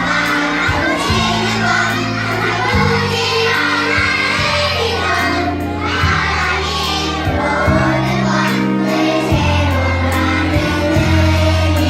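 A group of young children singing together over a recorded backing track, with sustained bass notes under the melody.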